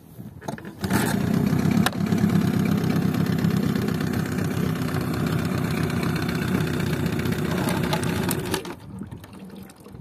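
Mercury 15 hp two-stroke outboard engine catching about a second in and running steadily, then cutting out abruptly near the end as the kill-switch lanyard is pulled.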